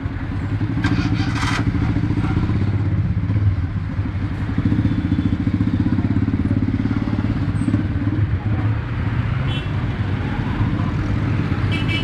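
Vehicle engines running at low speed in close street traffic, a steady low throb with quick even firing pulses, plus a brief clatter about a second in.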